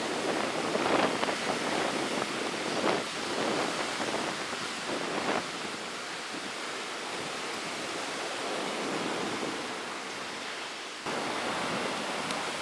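Steady outdoor rushing of wind and surf on the shore, swelling in gusts over the first few seconds, then evener, with a sudden small jump in level near the end.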